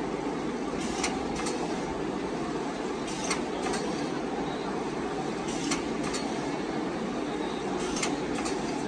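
Automatic L-sealer shrink wrapping machine running over a steady hum. Every two seconds or so it gives a pair of sharp clicks about half a second apart as it cycles through a pack.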